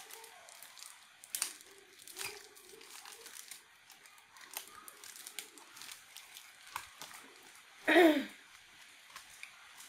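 Plastic bag crinkling as pieces of crispy rice cracker (cơm cháy) are pulled out and eaten, with scattered faint crackles and crunches. About eight seconds in, a short voice sound falling in pitch is the loudest moment.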